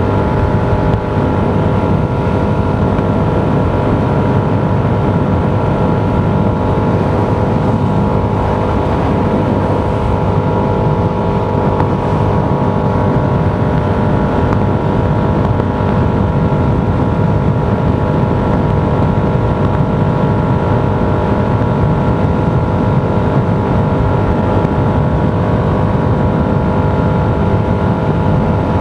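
Steady road noise of a vehicle driving at an even speed: a low rumble with a constant hum of several steady tones above it, loud and unchanging.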